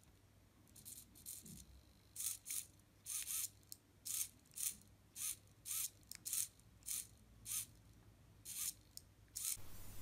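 Small hobby servo motor whirring faintly in about fifteen short bursts, roughly two a second, as it swings its horn back and forth under joystick control.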